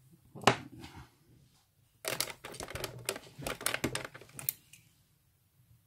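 Clicks and clatter of small hand tools being handled on a workbench: one sharp click about half a second in, then a run of rattling clicks for about two and a half seconds as the soldering iron is picked up.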